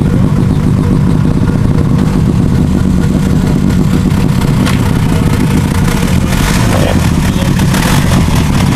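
Engine running loudly up close, with a steady pulsing idle and a couple of brief rises in revs in the second half.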